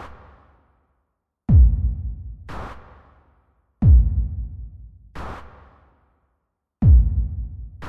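Percussion 'boom pop' sound effect: a deep drum-machine boom, then about a second later a sharper, brighter pop, each dying away quickly. The pair repeats three times, at an uneven pace.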